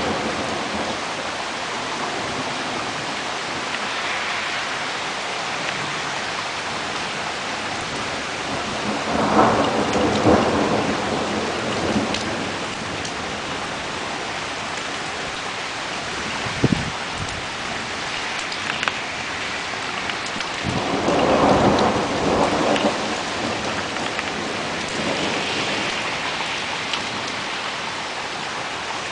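Steady rain falling through a thunderstorm, with thunder rumbling up twice, about a third of the way in and again, longer, about two-thirds through. A single short sharp crack comes just past the middle.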